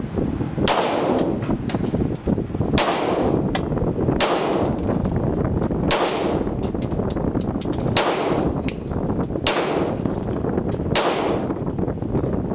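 .45 pistol fired seven times, single shots spaced about one and a half to two seconds apart, each a sharp crack with a ringing echo after it. Fainter clicks fall between some of the shots, over a steady background noise.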